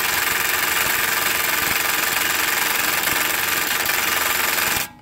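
Impact drill on its lowest setting hammering at a Phillips-head brake rotor retaining screw, a steady loud rattle that cuts off abruptly just before the end. The rust-seized screw does not turn.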